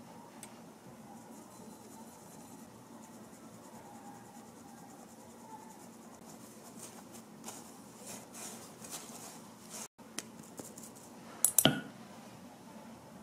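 Kitchen preparation sounds: faint scraping and light tapping of utensils and ingredients, with one sharp clack near the end.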